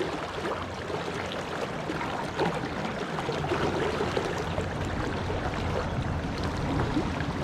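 Stream water running and splashing steadily, with a low rumble underneath that grows from about halfway through.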